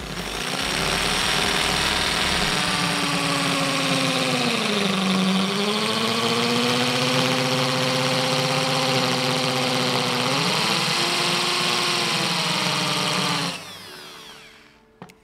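Electric drill with a masonry bit boring into a concrete wall. The motor note sags under load about five seconds in and picks back up near ten seconds, then the drill is released near the end and spins down.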